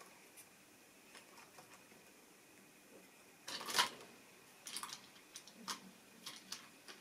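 A model railway locomotive being handled on the track: light clicks and taps, with a louder brief scraping rattle a little past halfway and a run of sharp clicks after it.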